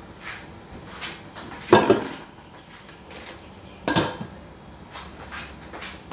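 A few hard knocks and clacks, like hard objects being set down or bumped: two loud ones about two seconds apart, with fainter ticks between them.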